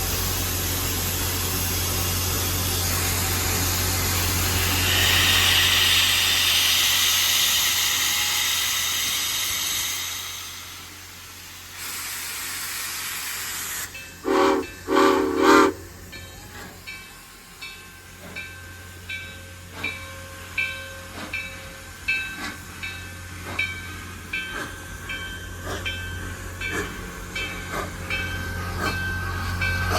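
Grand Canyon Railway steam locomotive 4960 letting off a loud, steady hiss of steam, then sounding two short whistle blasts, the usual signal that the train is about to move off. After that come regular beats that gradually quicken as the train gets under way.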